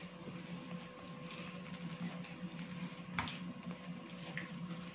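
Maida yeast dough being kneaded by hand on a countertop as butter is worked in: soft rubbing and squishing over a steady hum, with one sharper knock about three seconds in.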